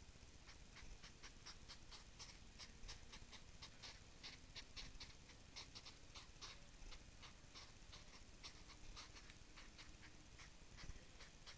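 Hedgehogs huffing and snorting in courtship, as the male circles the female: a rapid, uneven run of short puffs, several a second, starting about half a second in.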